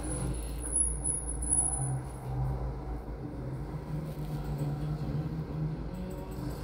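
A steady low mechanical hum with a wavering drone, and a faint high whine that fades out about two seconds in.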